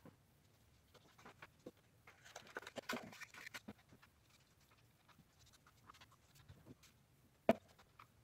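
Faint rustling and tapping of paper and chipboard being handled and pressed, with a denser scratchy rustle about two to three and a half seconds in and a single sharp tap near the end.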